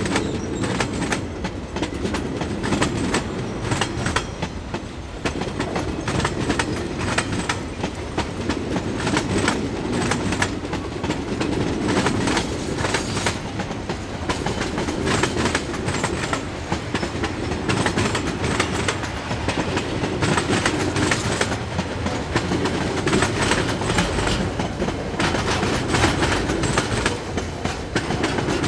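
Train rolling past, its wheels clicking and clattering steadily over the rail joints above a continuous low rumble.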